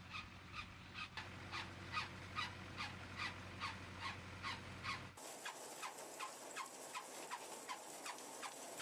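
Regular clacking, about two to three a second, over a steady low engine drone that cuts off about five seconds in while the clacking goes on.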